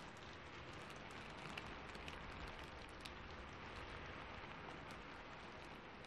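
Steady rain falling, an even hiss with many scattered small ticks and crackles.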